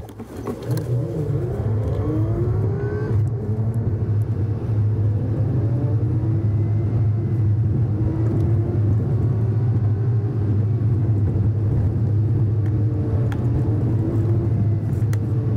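Truck engine and tyres heard from inside the cab while driving a dirt road. The engine note rises in pitch over the first few seconds, drops back about three seconds in, then runs fairly steady with small rises and falls.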